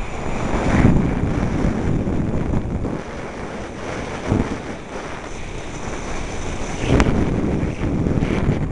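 Wind buffeting the microphone of a camera carried by a downhill skier, with the hiss of skis on snow swelling a few times, and a sharp click about seven seconds in.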